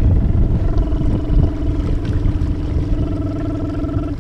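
Electric trolling motor running at high speed, a steady hum that sets in about half a second in and cuts off abruptly near the end, over heavy wind buffeting the microphone.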